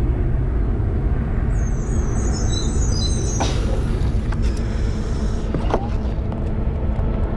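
Steady low rumble of an airliner cabin in flight, with a few faint clicks over it.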